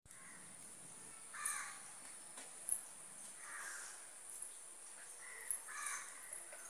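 Crows cawing: a few short, harsh caws a second or two apart, over a faint steady high-pitched hiss.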